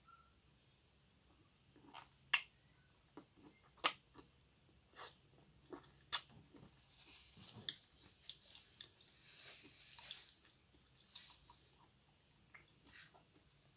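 Close-miked mouth sounds of chewing raw pork liver: sharp wet smacks and clicks scattered through, with a few seconds of softer wet hissing noise in the middle.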